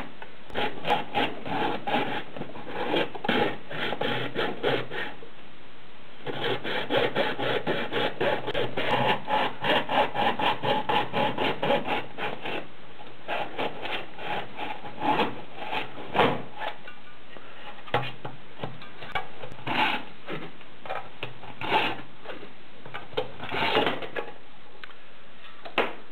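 Fine-toothed razor saw cutting through a plastic Polaroid camera body by hand, in quick back-and-forth strokes, with a short pause about five seconds in. After about twelve seconds the strokes thin out to scattered single scrapes.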